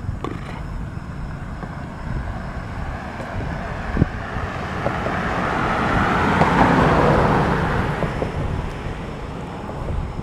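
A car passing on the road: its tyre and engine noise swells over a few seconds, is loudest about two-thirds of the way in, then fades away. Low wind rumble on the microphone underneath, and one brief knock near the middle.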